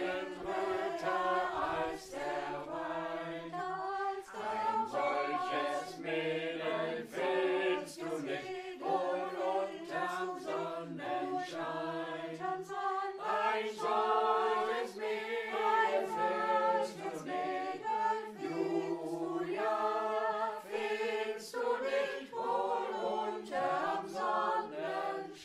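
Choir of several voices singing a folk song, phrase after phrase without a break.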